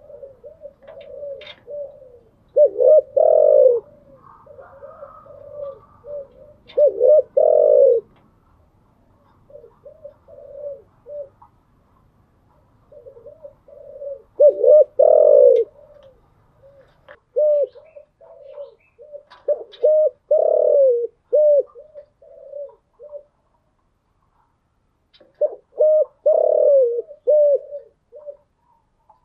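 Spotted dove (cu gáy) cooing: about six phrases of low, repeated coo notes, each phrase a few seconds long, separated by short pauses.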